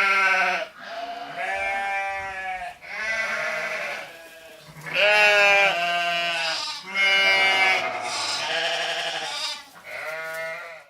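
Sheep bleating, a run of about six long, wavering bleats one after another with short pauses between them.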